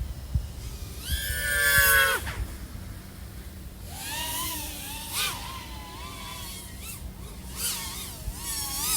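3.5-inch FPV quadcopter's XING 1504 3100KV brushless motors and propellers whining with the throttle. About a second in the whine rises in a short burst and drops off sharply near two seconds. From about four seconds it wavers up and down in pitch as the throttle is worked.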